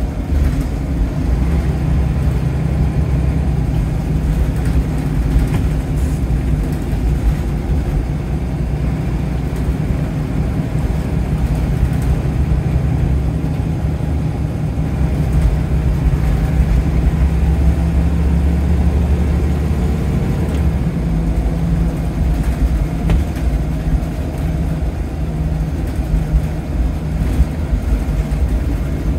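Scania L94UB single-deck bus's diesel engine heard from inside the bus on the move: a steady low drone that builds from about 16 seconds in and drops back suddenly at about 20 seconds.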